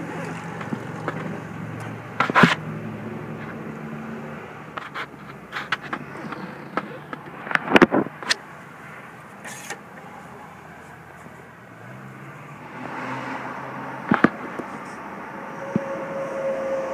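Sharp knocks and scrapes, a few of them loud, over steady outdoor background noise with a low engine-like hum that fades out about four seconds in and comes back later.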